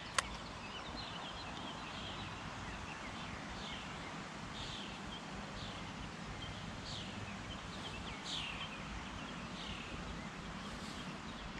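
Small birds calling: short, downward-sliding chirps about once a second over steady outdoor background noise. A single sharp click sounds just after the start.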